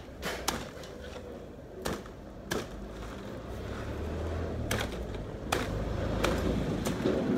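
Meat cleaver chopping into a plant's root clump: a series of sharp chops at uneven intervals, some in quick pairs, over a low rumble that grows louder in the second half.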